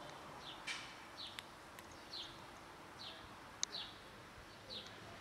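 A small bird repeats a short, high, falling chirp about six times, under a second apart. A few sharp clicks break in, the loudest near the middle: cats crunching dry kibble.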